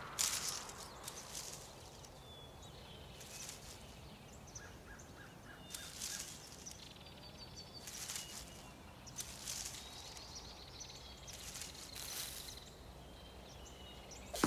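Quiet forest ambience: soft rustling swells of breeze that come and go every couple of seconds, with faint high bird chirps here and there and a short run of quick ticks about five seconds in.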